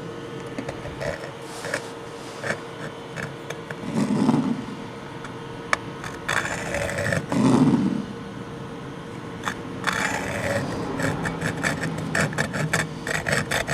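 Hacksaw blade scraped through the threads of a damaged wheel stud to clear out the thread valleys, in short scraping strokes that come quickly one after another in the last few seconds. Two duller bumps come in the middle.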